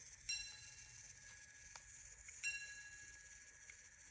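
Minute repeater of a Swiss pocket watch striking the time on its gongs: a single stroke for the hour, a double stroke for the quarter and a single stroke for the minute, sounding 1:16. The strikes are light, ringing tones that die away slowly.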